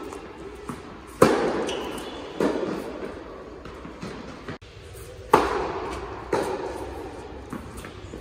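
Tennis rally on an indoor hard court: rackets striking the ball and the ball bouncing, a sharp hit every second or two that echoes in the hall. The loudest hits come about a second in and about five seconds in, and a brief gap breaks the sequence near the middle.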